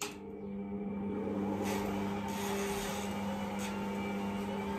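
Electric stand mixer starting up and running steadily as it kneads a batch of pizza dough: a motor hum with a steady tone that builds over about the first second, then holds even.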